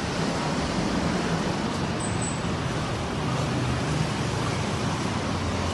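Steady rushing noise with a low rumble underneath, even throughout, with no distinct knocks or tones.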